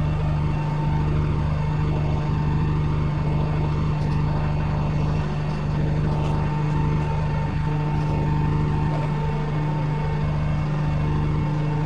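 Bus engine running steadily: a constant low hum with a fainter high whine above it and road noise underneath.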